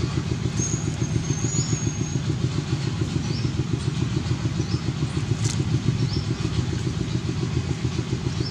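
A small engine running steadily at idle, with a fast, even pulsing beat.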